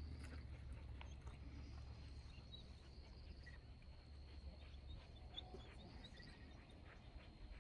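Near silence: faint outdoor ambience, a steady low rumble with a few faint short bird-like chirps and a thin steady high insect-like tone.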